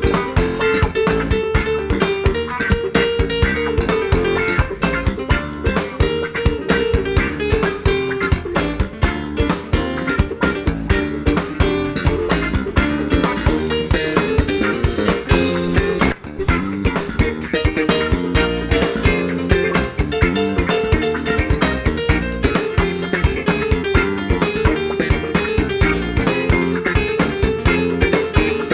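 Live rock band playing an instrumental jam with guitar leading over bass and drum kit.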